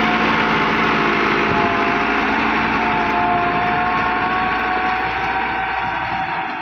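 Tractor engine running steadily under load while pulling a plough through the field, a little quieter near the end.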